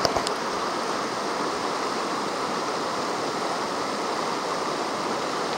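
Shallow river water rushing steadily past, with a couple of faint clicks right at the start.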